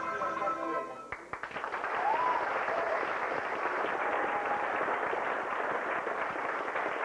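The handbell and accordion music ends about a second in, then the audience applauds steadily.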